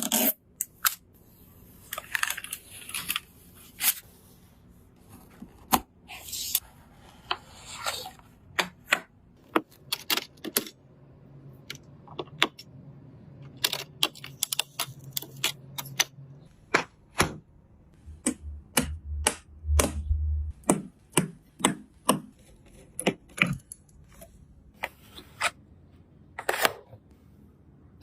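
Small plastic and metal clicks, taps and scrapes of PC components being handled and fitted together, in irregular single clicks with a few longer scraping stretches. A short low hum comes in about two-thirds through.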